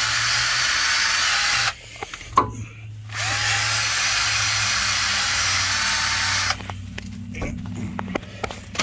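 Cordless drill fitted with a wire wheel brush scrubbing rust and grease off the steering knuckle's bearing bore, cleaning the mounting surface so the new wheel bearing sits flat. It runs in two spells of a few seconds each, the motor winding up at the start of each, with a sharp clank between them.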